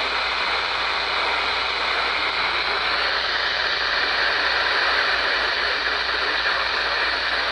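Steady hiss of radio static from a weather radio receiver tuned to a weak NOAA Weather Radio station, with no voice on the channel.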